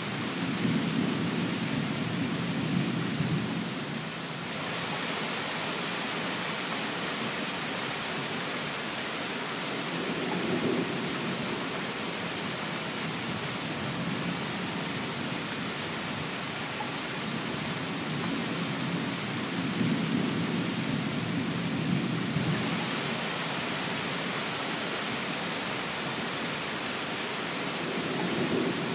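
Steady rain hiss with low rumbles of thunder swelling up and fading away, four times over about half a minute.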